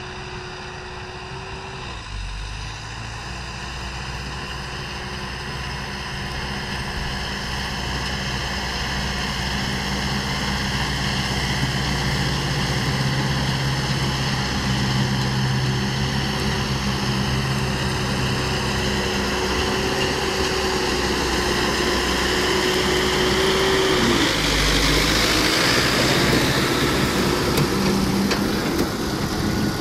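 Zetor tractor engine running steadily while pulling a Welger RP445 round baler, with the baler's machinery running behind it. The sound grows gradually louder as the rig comes close, and the engine note dips in pitch about 24 seconds in.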